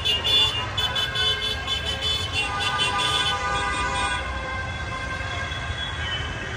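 Vehicle horns sounding at length in jammed street traffic, several steady tones overlapping, which stop about four seconds in. Traffic and crowd rumble continue underneath.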